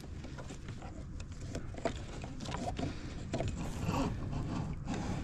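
Scattered small clicks and knocks of a kayak's motor mount and lift cords being handled as the electric outboard motor is lowered, over a low steady background rumble.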